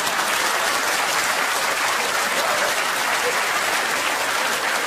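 Theatre audience applauding steadily in response to a joke.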